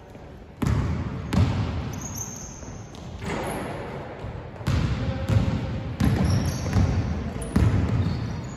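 A basketball bouncing on a hardwood court in a large echoing sports hall, several irregular thumps, with short high squeaks of players' shoes on the floor.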